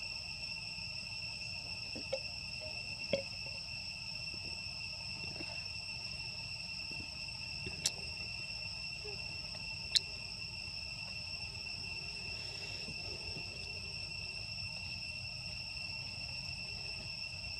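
Steady high-pitched drone of insects in forest, one unbroken tone with overtones. A few short sharp clicks break through, the loudest about ten seconds in.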